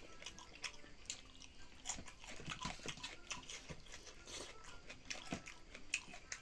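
A person chewing and biting chicken tangdi kebab (chicken drumstick), with irregular mouth clicks and smacks.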